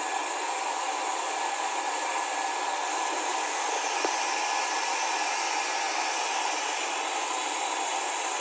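Hair dryer blowing steadily, an even airy rush with a faint motor whine.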